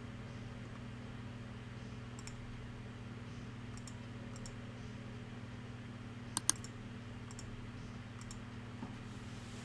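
Sparse, light clicks of a computer keyboard, a few seconds apart, with a sharper double click a little past the middle. A steady low electrical hum runs underneath.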